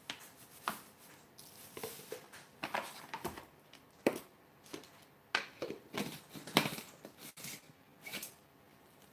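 Plastic bag of granulated sweetener crinkling as it is poured, with scattered light clicks and knocks of a plastic Magic Bullet blender cup being handled and set in place.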